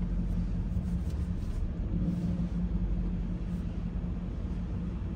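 Ford Mustang 5.0 V8 idling, heard from inside the cabin as a steady low rumble and hum.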